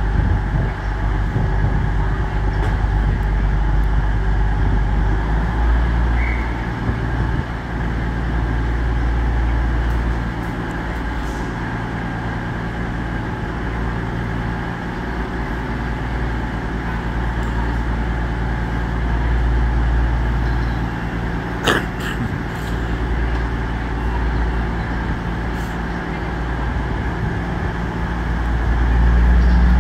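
Class 222 Meridian diesel multiple unit's underfloor diesel engines idling at the platform, a steady low rumble with a faint steady hum above it. A short sharp click comes about 22 seconds in, and the rumble grows louder near the end.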